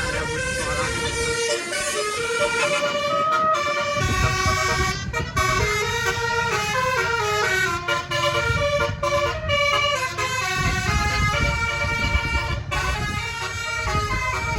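A bus's multi-note "telolet basuri" horn, nine notes, plays a tune in quick stepped notes. A low rumble runs underneath from about four seconds in.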